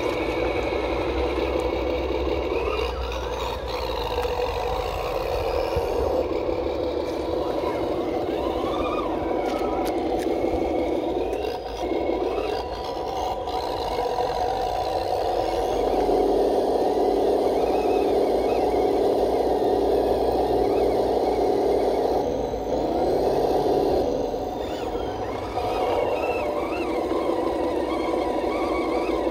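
Electric drive motor and gearbox of a 1/12 scale RC CROSS KrAZ-260 6x6 model truck whirring as it wades through deep muddy water, the whine shifting up and down in pitch several times as the throttle changes.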